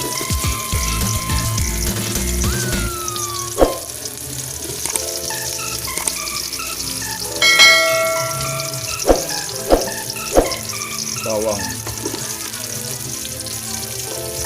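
Onion and ginger sautéing in hot oil in a pan, a steady sizzle, with a few sharp knocks against the pan about a third of the way in and again about two-thirds in.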